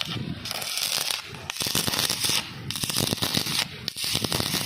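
Electric arc welding: the arc crackling and sizzling steadily, in several stretches broken by short gaps.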